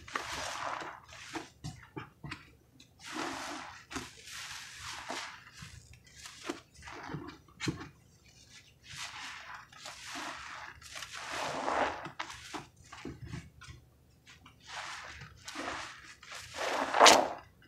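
Sponge full of thick soap foam being squeezed and kneaded in a basin of sudsy cleaner water: repeated wet squelching and crackling of foam, each squeeze a second or less, the loudest one near the end.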